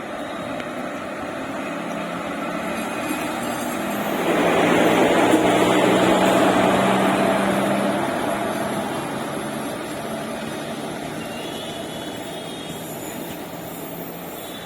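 WAP-4 electric locomotive moving off with its train: a steady hum with a low drone that swells to its loudest about four seconds in and fades slowly over the following seconds.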